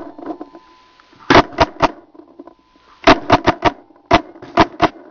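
Paintball marker firing rapid shots close by, in three quick bursts: three shots, then four, then four.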